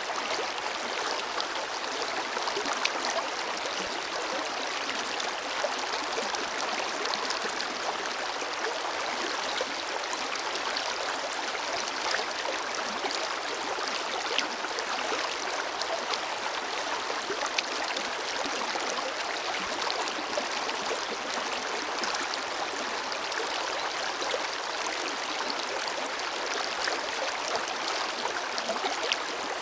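Forest river flowing steadily, water rushing and splashing over rocks with small bright splashes scattered through it.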